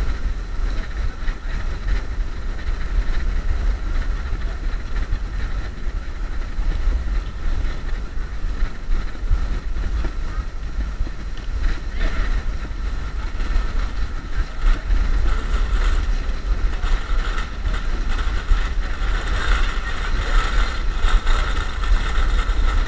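Riding noise from a Xiaomi M365 electric scooter: wind buffeting the action camera's microphone over a steady low road rumble. A brighter hiss joins from about twelve seconds in.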